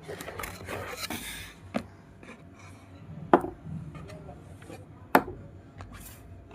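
Unboxing handling noise: packaging rustling at first, then three sharp clicks or knocks spread through, the middle one and the last the loudest.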